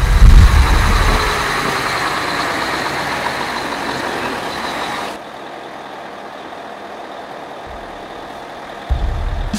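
Logo sound effect: a deep boom and a loud rush of noise that fades slowly, then cuts off abruptly about five seconds in. A quieter steady outdoor hiss follows, with a low rumble coming in near the end.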